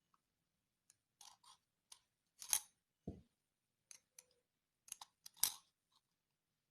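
Scattered small clicks and scrapes of the plastic and metal parts of an LED bulb being handled while it is taken apart, with two louder crunchy clicks about two and a half and five and a half seconds in.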